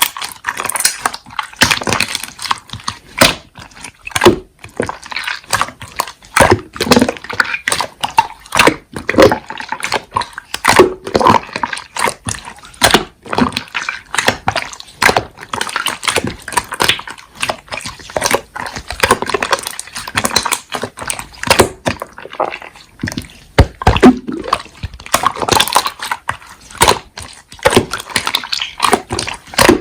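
Slime being squeezed and pressed by hand, making a rapid, irregular run of short clicks and pops.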